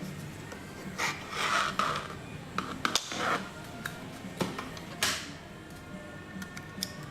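Fujitsu 2.5-inch 160 GB hard drive making abnormal noises: a low steady hum with several rasping scrapes and sharp clicks between about one and five seconds in. These are the noises of a failing drive, a sign to cut its power at once.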